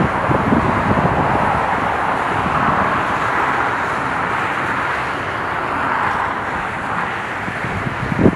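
Steady rushing roar of distant traffic, with wind buffeting the microphone near the start and again near the end.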